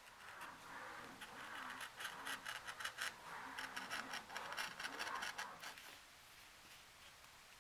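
Hand work scratching and rubbing, with many small clicks and a few faint squeaks, lasting about five and a half seconds before it stops.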